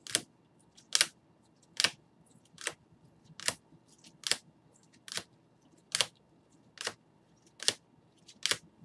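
Clear rigid plastic card holders clicking against each other as trading cards in them are flipped off a stack one at a time: a sharp click a little more than once a second.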